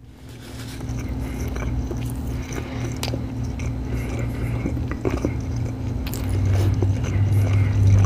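A person chewing and biting food close to the microphone, with many small irregular mouth clicks over a steady low hum.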